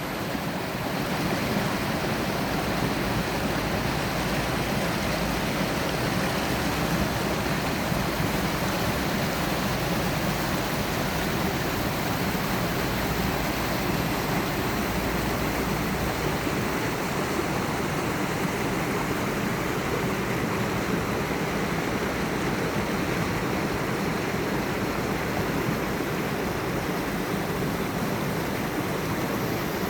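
Mountain stream cascading over rocks: a steady, even rush of water.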